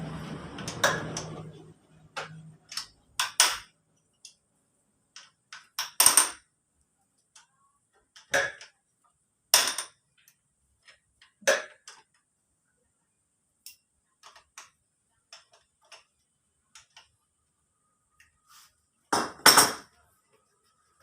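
Irregular metallic clinks and clanks of hand tools and scooter engine parts being handled and set down, with quiet gaps between them. A quick cluster of louder knocks comes near the end.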